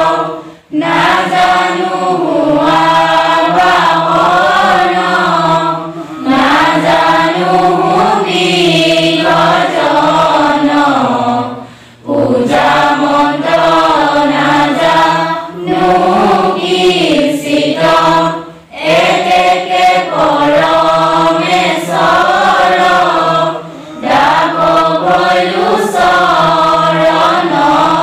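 A group of men and women chanting a devotional prayer together in unison, the melody rising and falling in phrases about six seconds long, with a short breath-pause between phrases.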